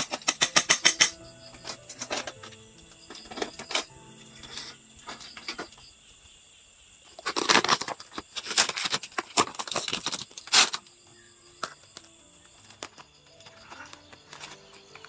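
Aluminium foil crinkling and rustling as a foil-wrapped grilled-fish parcel is handled and torn open: a quick run of crackles in the first second, then a longer spell of loud crumpling about seven to eleven seconds in. Soft background music plays underneath.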